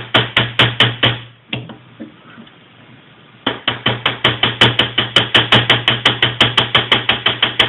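Small hammer tapping a rivet on a Victorinox German Army Knife held in a bench vise, peening the rivet head over. The light metal taps come as a quick run, then a pause with a few scattered taps, then a fast steady series of about five taps a second from about three and a half seconds in.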